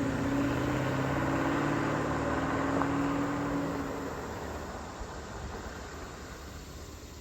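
The 2004 Porsche Cayenne S's V8 engine running with a steady note, then fading out over the second half.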